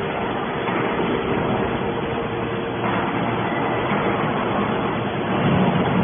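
Hydraulic scrap metal baler running, a steady mechanical drone with a faint steady whine, swelling slightly about five seconds in.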